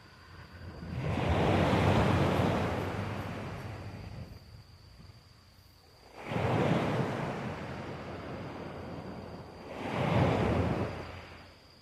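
Wind and surf at the sea's edge rushing on the microphone, coming in three swells, about a second in, near the middle and near the end, with quieter spells between.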